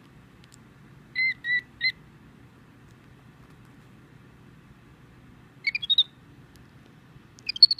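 Five-week-old infant capuchin monkey giving short high-pitched peeps: three about a second in, then two quick clusters of chirps, one around six seconds and one just before the end.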